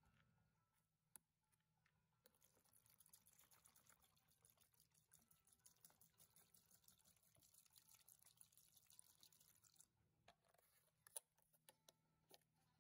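CLR calcium, lime and rust remover poured from its jug into a plastic tub over rusty steel compass parts, faintly fizzing and crackling as it foams, stopping suddenly about ten seconds in. A few faint clicks follow near the end.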